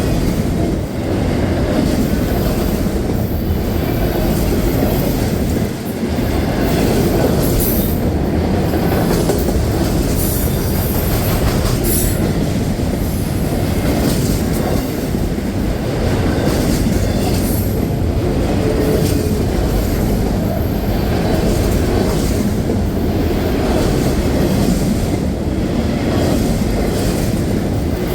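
Train cars rolling past on the rails: a steady, loud rumble with wheels clicking over rail joints.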